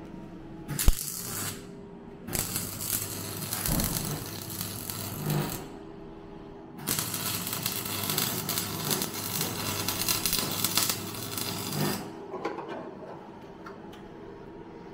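MIG welder crackling as it lays weld on car body steel, in runs: a sharp crack about a second in, a run of about four seconds, a short pause, then a steadier run of about five seconds that stops near the end.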